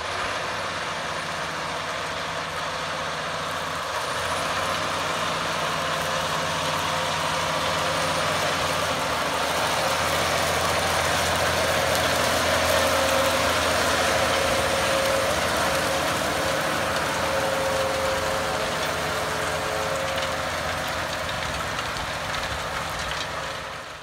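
Large farm tractor's diesel engine running steadily under load while pulling a cultivator, a broad rushing noise over a low hum.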